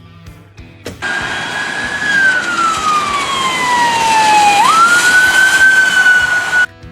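A siren sounding: a single wailing tone that sinks slowly in pitch, swoops quickly back up about four seconds in and holds, then cuts off abruptly near the end, over a steady hiss.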